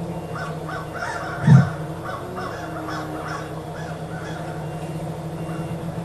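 A large flock of crows cawing: a quick run of about a dozen short caws in the first three and a half seconds, then fewer. Under the calls is the quadcopter's steady motor drone, and a single loud thump comes about a second and a half in.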